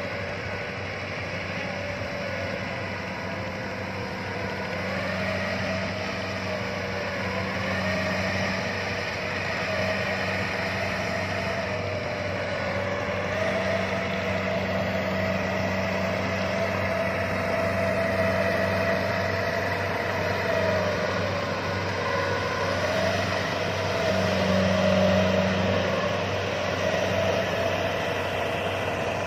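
Kubota DC-105X combine harvester's diesel engine running steadily as the machine drives through a flooded rice paddy. Over the engine hum there is a whine that slowly rises and falls in pitch.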